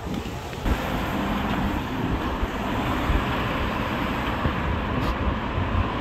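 Strong gusty wind buffeting the microphone: a loud, steady rushing with heavy low rumbling, stepping up just under a second in.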